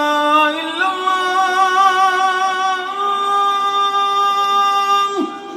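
A solo singing voice holding long, drawn-out notes with vibrato, stepping up in pitch twice, then breaking off with a quick downward slide about five seconds in.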